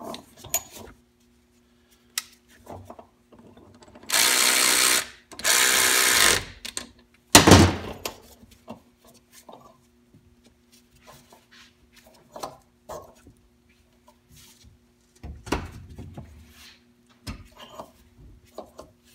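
A power tool runs in two short bursts of about a second each while a pump puller works the front pump out of a 4L80E transmission case. A single loud metal knock follows, among small clicks of hand tools and parts.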